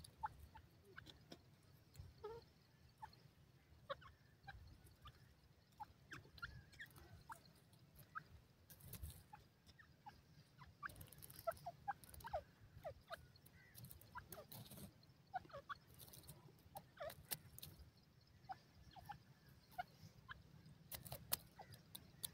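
Faint, scattered soft clucks and short falling notes from a grey francolin foraging, with light ticks over a low rumble.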